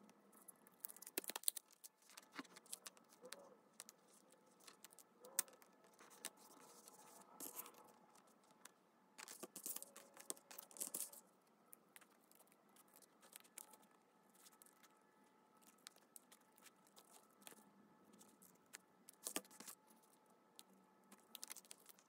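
Faint handling sounds of paper and craft materials: scattered soft rustles, taps and small clicks, with a longer stretch of rustling about halfway through.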